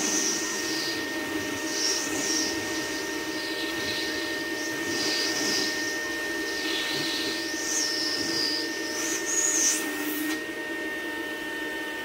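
Rainbow vacuum cleaner running steadily with its shampooer attachment on the wand, a wavering high hiss of rushing air over the motor hum. The hiss drops out about ten seconds in, leaving the even hum.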